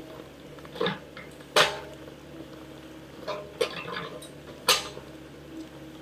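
Mini excavator's diesel engine running steadily as it digs, with several sharp metallic clanks from the bucket and arm linkage as it works the soil.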